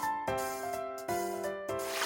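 Background music: sustained melodic notes that change every half second or so.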